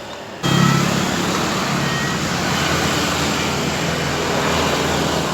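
Road traffic noise on a street, a steady rush of passing vehicles that cuts in suddenly about half a second in, after the tail of background music.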